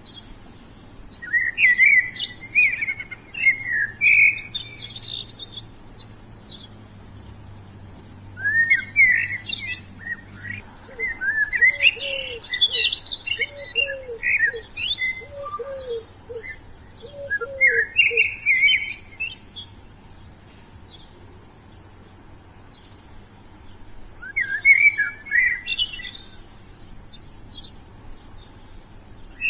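Wild songbirds chirping in quick, high bursts of song that come and go every few seconds, with short pauses between. Partway through, a much lower call repeats about six times beneath the chirping.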